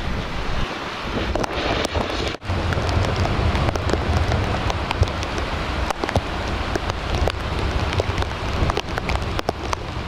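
Rain falling steadily with many sharp drop ticks, over a low buffeting of wind on the microphone. The sound breaks off briefly about two and a half seconds in.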